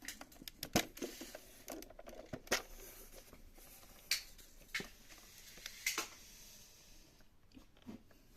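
Small plastic toy parts being handled: irregular light clicks and taps, about a dozen, with soft rustling in between.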